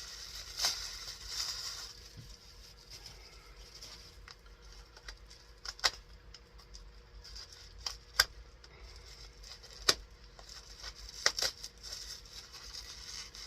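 Unpacking a tightly packed box: packing material rustling and being pulled out, with a few sharp clicks and taps from items being handled.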